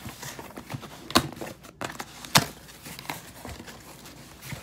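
A shipping box and its packaging being handled and opened: light crinkling and rustling, with two sharp clicks or knocks, about a second in and again about two and a half seconds in.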